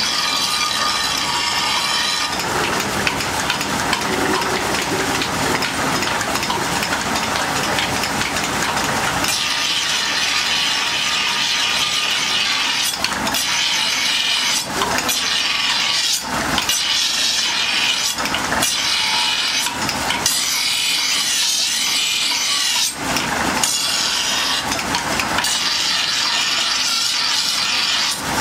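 Steel talwar blade being ground on a spinning grinding wheel: a steady, harsh rasping hiss of metal on abrasive. Short breaks where the blade is lifted and set back on the wheel come every couple of seconds in the second half.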